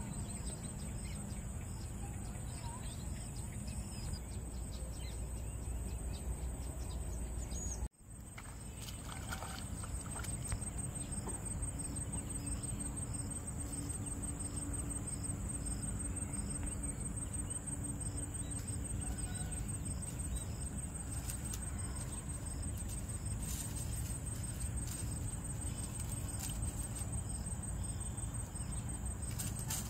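Rural outdoor ambience: a steady, unbroken high-pitched insect drone over a low rumble, with a few faint bird chirps. The sound cuts out abruptly for a moment about eight seconds in, then resumes.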